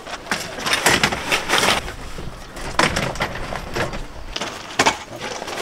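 A folding camp cot being handled and set down on gravel: metal frame clatter, fabric rustling and crunching stones, with a few sharp knocks.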